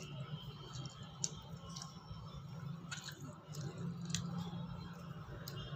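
Faint eating sounds: a child chewing softly, with a few light clicks of a utensil against a plastic plate, over a low steady hum.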